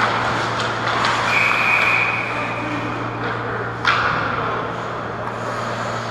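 Ice hockey referee's whistle blown once about a second in, a short, steady, shrill note that stops play. It sounds over the rink's steady low hum and skating noise, and there is a single sharp knock near four seconds.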